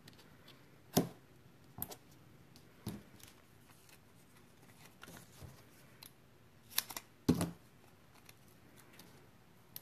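Scattered small clicks and snaps of paper-crafting handwork: adhesive foam dimensionals and cardstock pieces being handled at a table. The sharpest snaps come about a second in and as a pair around seven seconds.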